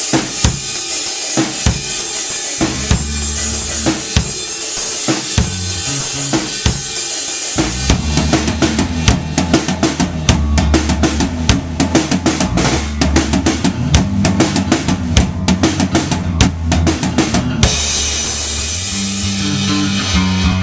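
A band playing at rehearsal: a drum kit keeps a steady beat with bass drum and snare, and bass notes come in a few seconds in. From about eight seconds in the drumming gets busier and fuller, and near the end the cymbals drop out, leaving the bass line.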